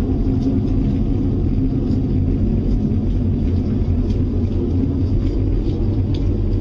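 A steady, deep rumbling drone with a low hum, of the kind reported as a mysterious sound from the sky, whose source is unexplained.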